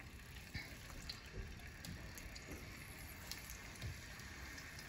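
Raw chicken pieces frying in oil in a nonstick pan: a faint, steady sizzle with scattered small crackles and a few soft knocks as pieces go in. The oil is not as hot as the cook expected.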